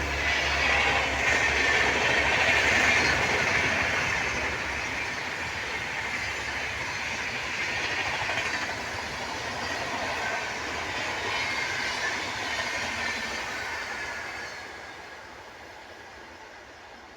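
Rajdhani Express passenger train passing through a station at speed: a loud rush and clatter of wheels and coaches over the track. It fades away over the last few seconds.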